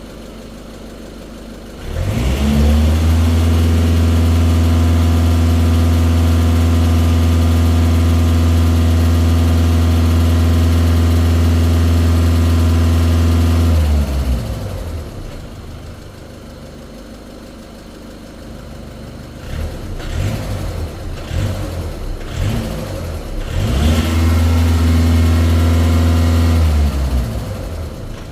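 2018 VW Passat B8 1.6 TDI four-cylinder diesel engine idling, revved up about two seconds in and held at a steady raised speed for about twelve seconds, then dropped back to idle. It is blipped a few times and held up again for about three seconds near the end. The owner is asking about an unexplained noise that the engine makes when it is accelerated.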